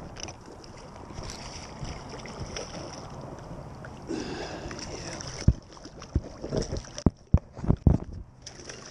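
Wind and lapping water around a kayak while a redfish is reeled in. In the last few seconds a run of loud splashes and knocks as the fish thrashes at the surface and is scooped into the landing net.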